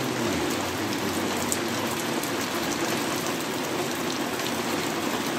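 Steady rain falling, an even hiss with scattered ticks of individual drops.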